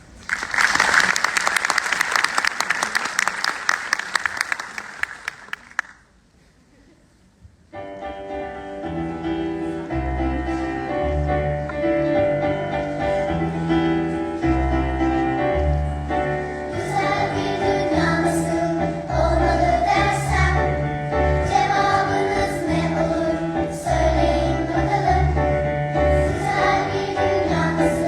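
Clapping for about six seconds that dies away, a brief silence, then a song starts: a choir singing over instrumental accompaniment with a steady, heavy bass line.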